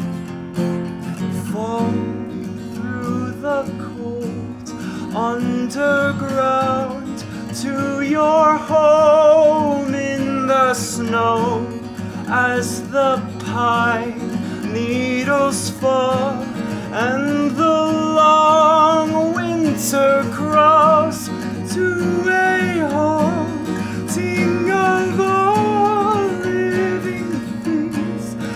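A man singing over his own acoustic guitar, with long held notes that waver in wide vibrato.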